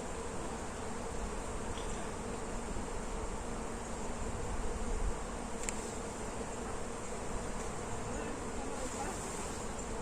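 Bees buzzing steadily among flowering cherry blossoms, a continuous hum over a low rush of wind.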